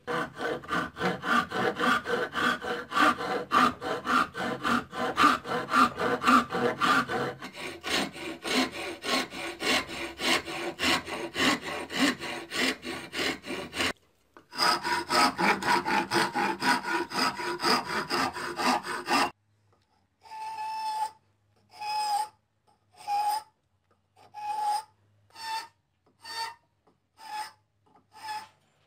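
Hand file rasping the end of a wooden block, shaping a round tenon. Fast back-and-forth strokes at first, then, after about 19 seconds, slower single strokes roughly one a second with short pauses between.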